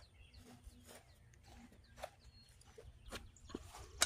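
Quiet outdoor ambience: faint bird chirps with a few soft ticks and steps scattered through it.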